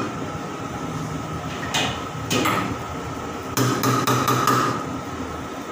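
A long-handled steel ladle knocking on metal at a wok stove: two single clinks, then a quick run of clangs about three and a half seconds in.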